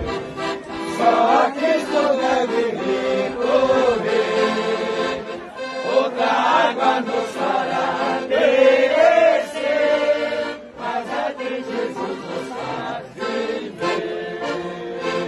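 Piano accordion playing a melody while a crowd of people sings along together.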